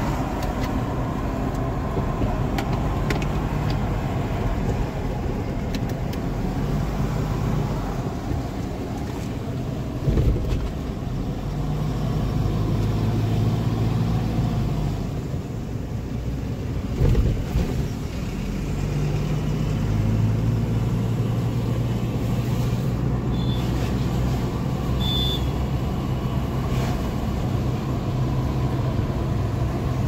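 Car cabin noise while driving at road speed: a steady engine and tyre hum heard from inside the car, its low note rising and falling with the engine, with two brief thumps about ten and seventeen seconds in.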